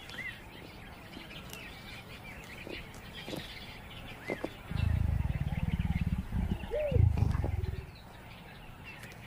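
A leopard cub growls in a low, rapidly pulsing stretch lasting about three seconds, starting about halfway through, while it grips its prey by the tail. There are a few short high chirps before and during the growl.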